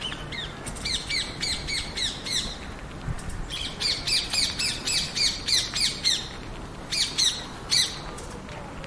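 A bird squawking: rapid runs of short, falling, harsh calls, about four or five a second, in three bouts with short pauses between them.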